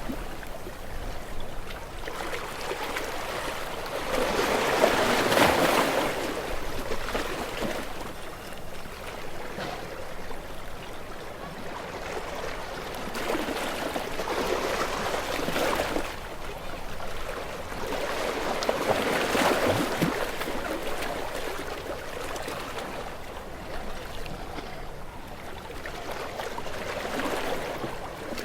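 Sea waves washing against shore rocks, the water noise swelling into a louder surge every several seconds, strongest about five seconds in and again around twenty seconds in.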